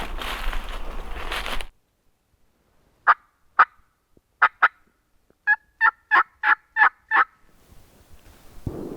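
Footsteps through dry leaves stop abruptly, then a turkey yelps in three short runs of sharp notes: two, two, then six quicker ones.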